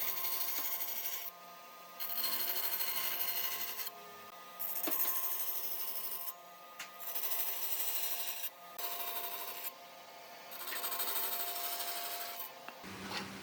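Wood being rubbed down by hand in long abrasive strokes, about five strokes of one to two seconds each with short pauses between. Near the end the strokes stop and a low hum comes in.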